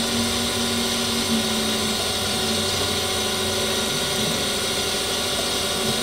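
Brown & Sharpe Micromaster 618 surface grinder running steadily, its wheel spindle and hydraulic table drive going as the table traverses back and forth and the head cross-feeds at a sped-up rate. There is a steady tone over an even hiss.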